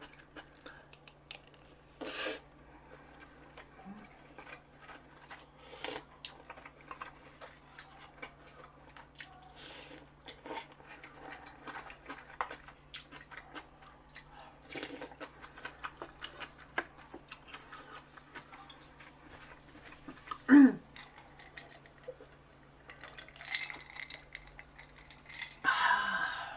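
Eating sounds: cutlery clicking and scraping against dishes while gopchang jeongol (beef tripe hot pot) and rice are eaten, with chewing. A louder brief sound with a falling pitch stands out about two-thirds of the way through.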